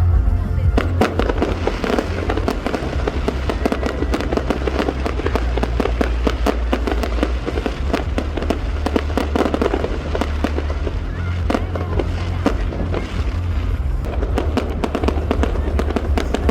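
Fireworks crackling and popping in a dense, rapid stream, starting about a second in, over music playing.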